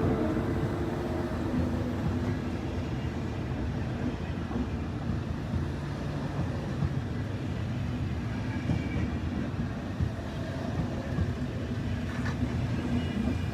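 ICE 1 high-speed train running on the rails: a steady low rumble of wheels and track, louder at the start and easing over the first couple of seconds, with faint whining tones coming and going.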